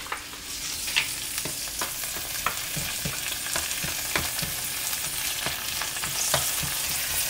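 Tomato slices sizzling in hot coconut oil in a nonstick frying pan, a steady hiss with scattered short clicks and taps as a plastic spatula pushes the slices around the pan.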